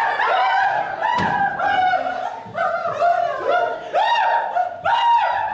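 Several people's voices making short, arching, rising-and-falling vocal noises one after another, imitating fireworks, with a sharp thump about a second in.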